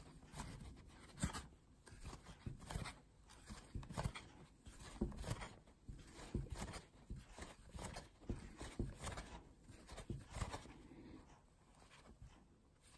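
Metal crochet hook and yarn worked by hand, making single crochet stitches: faint, irregular soft clicks and rustles.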